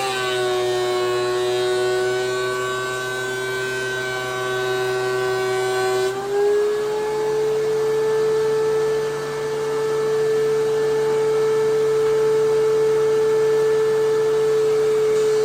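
Thickness planer running with a steady motor whine. The pitch is pulled lower with a hiss of cutting while a glued-up board feeds through, then rises about six seconds in as the board clears the cutterhead and the motor runs on unloaded.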